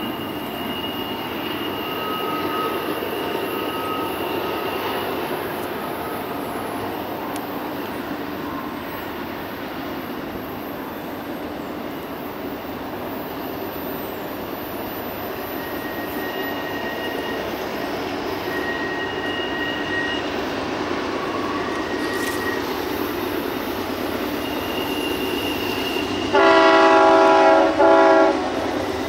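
Union Pacific diesel freight locomotive approaching with its train, a steady rumble with thin wheel squeals coming and going on the curve. Near the end its multi-chime air horn sounds loudly, a long blast then a short one.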